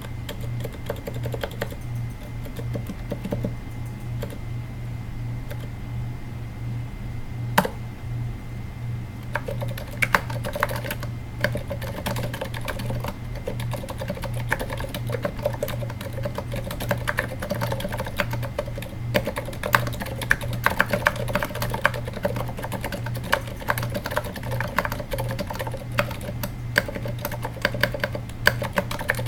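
Typing on a Katana-60 keyboard in a low-profile aluminium case, fitted with ZealPC 78g Zilents silent tactile switches whose rubber dampeners soften both the downstroke and upstroke. The keys give soft, muted clicks: one lone keypress, then steady typing from about a third of the way in. A steady low hum runs underneath.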